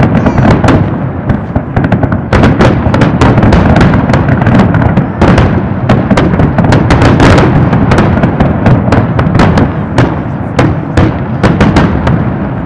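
Fireworks display: a rapid barrage of aerial shell bursts, many sharp bangs in quick succession over a continuous rumble, thinning out near the end.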